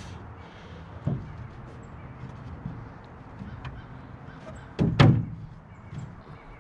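Thumps of a Coosa board transom panel being shifted and knocked against the jon boat's transom. There is one knock about a second in and a louder double knock about five seconds in, with light clicks between.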